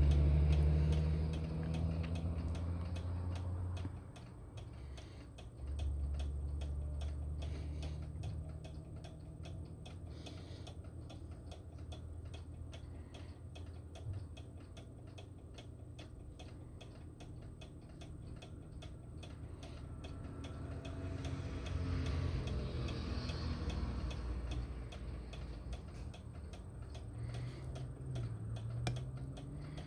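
Microwave oven running with a mechanical timer ticking steadily, over a low hum.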